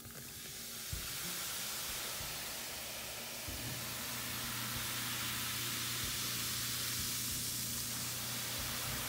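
Vinegar poured onto baking soda, the mixture fizzing with a steady hiss as the carbon dioxide foam rises and overflows the cup.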